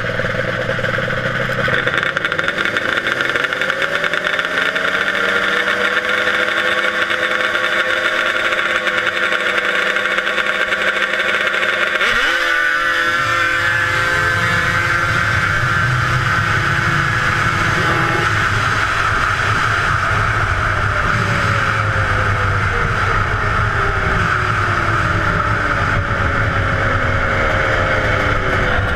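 Yamaha race snowmobile's engine revving up from the start and accelerating hard, its pitch climbing. A little under halfway through the sound breaks off abruptly and the pitch climbs again, then falls steadily over the last several seconds as the sled slows.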